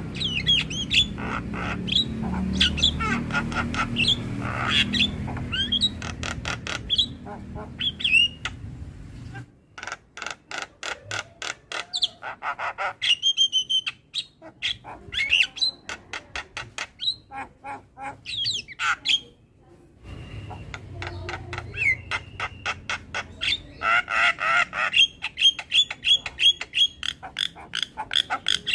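Javan myna singing a long, varied song: fast runs of clicks and chatter, sharp whistles and harsh squawks, broken by a couple of short pauses. A low background rumble sits under parts of the song.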